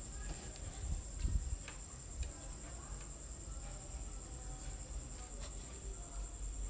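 A steady high-pitched whine over a low rumble, with a few faint short clicks and one heavier low bump about a second in.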